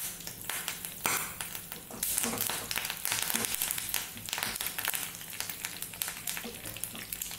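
Curry leaves, mustard seeds and dried red chillies sizzling and crackling in hot coconut oil, stirred in a small pan with a wooden spatula: a tempering (tadka) for the curry.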